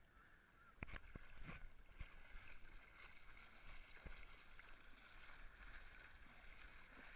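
Faint, muffled sloshing of shallow water around a camera held at the water's surface, with a few short knocks or splashes about a second in.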